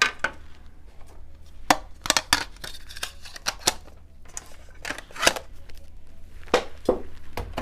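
Light clicks and knocks of small objects being handled and set down on a tabletop, a dozen or so at irregular intervals.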